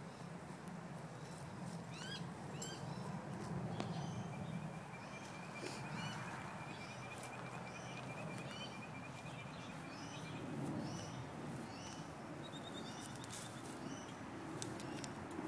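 Small birds chirping and trilling: scattered short curved chirps, a long rapid trill through the middle and a shorter, higher trill near the end, over a steady low rumble.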